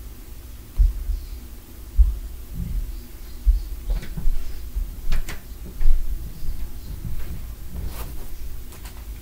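Dull thuds and bumps from a neighbouring unit carried through the floor, about four heavy ones at irregular intervals, with a couple of sharper knocks in the second half.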